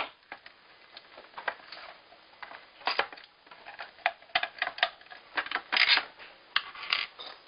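Irregular clicks, taps and short scraping rattles of small screws and the hard plastic shell of a Pinokio paintball loader being handled during disassembly.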